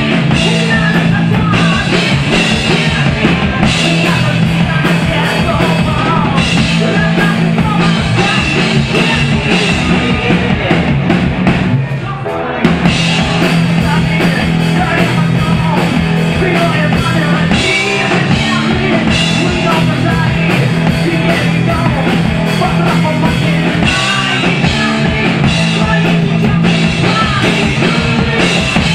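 A heavy metal band playing live in a club: drum kit, bass guitar and electric guitars. About twelve seconds in the sound thins out briefly, then the full band comes back in on a loud hit.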